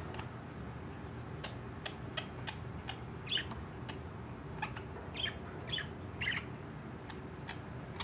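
Pet budgerigars chirping in their cage: scattered short chirps and clicks, with four louder, squawky chirps in the middle, over a steady low hum.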